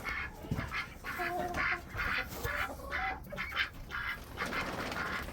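Chickens clucking in a coop: a string of short calls, about two a second.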